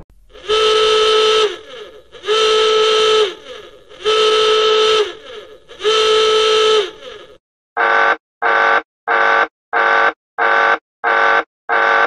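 Two alarm sound effects. The first is four long pitched blasts of about a second each, sliding up into pitch at the start and down at the end, with echo between them. About seven and a half seconds in, a second alarm of eight short beeps follows, about two a second.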